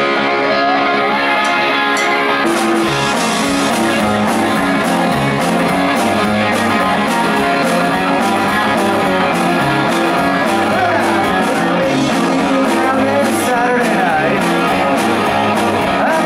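A live rock band playing loudly: electric guitars, bass guitar and a drum kit, with a steady beat of drum and cymbal hits.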